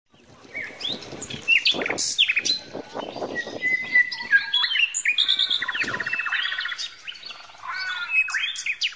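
Several small birds chirping and calling in quick, overlapping phrases, with a fast trill about five seconds in.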